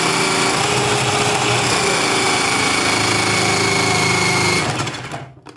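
Tefal Powelix Activflow Expert 1500 W hand blender motor running on its slow setting, driving the grater disc of its food processor attachment while a carrot is pushed through and grated. A steady motor whine with a few fixed tones, which switches off and winds down near the end.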